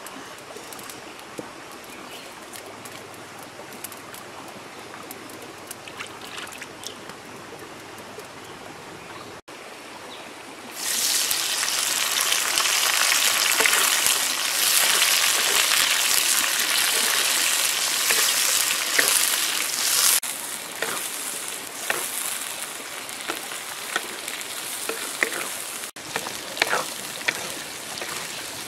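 Grubs frying in hot oil in a metal wok over a wood fire: a loud, dense sizzle starts about a third of the way in, holds, then eases off. Before and after it there is a quieter steady hiss with light crackles and pops from the burning wood.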